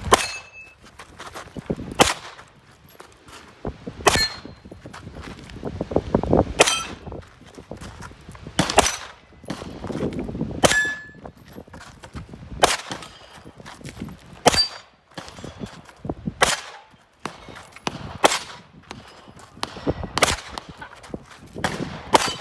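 Gunshots with the ringing clang of steel plate targets being hit, about a dozen strikes spaced roughly every two seconds.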